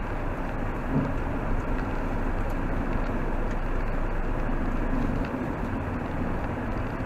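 Car driving on a wet road, heard from inside the cabin: a steady mix of engine and tyre noise at an even level.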